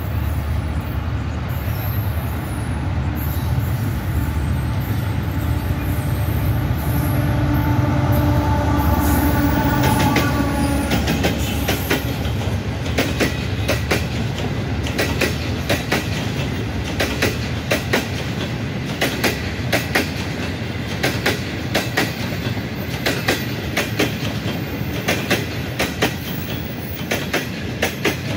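Pakistan Railways Green Line passenger train passing close by at about 45 km/h. First the diesel locomotive's low rumble builds, with a steady pitched note as it draws near; then, from about halfway, the coaches' wheels clack quickly and evenly over the rail joints.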